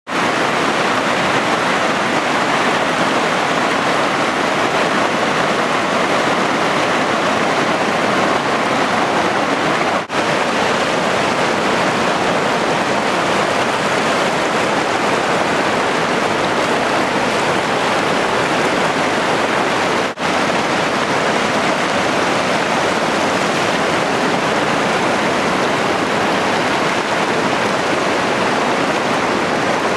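Rushing water of Cattaraugus Creek and its South Branch, fast and muddy, running over shallow riffles and rapids at their confluence. It is a steady, loud rush, broken by two very brief dropouts about ten and twenty seconds in, where clips are joined.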